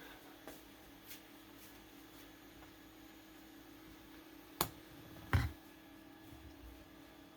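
Small objects handled on a workbench: a few faint ticks, then a sharp click and a louder knock about five seconds in, over a steady low hum.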